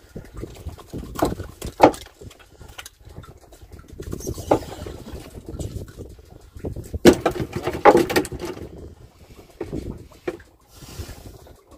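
Scattered knocks and thumps on a small wooden fishing boat as a freshly caught fish is handled and unhooked from a handline. The loudest cluster comes about seven to eight seconds in.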